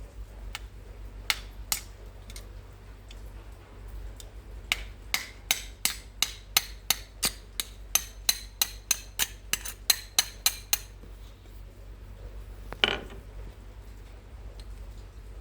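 Repaired spool being turned, its mechanism clicking in an even run of about three sharp clicks a second for about six seconds after a few scattered clicks. Near the end comes a single louder knock.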